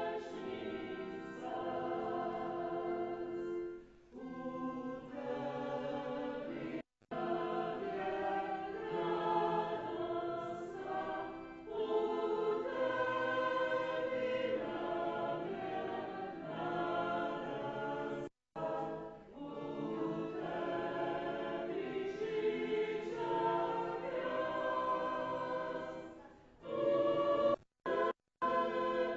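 A choir singing a hymn in sustained phrases. The sound drops out completely for a moment several times: once about seven seconds in, once about eighteen seconds in, and twice near the end.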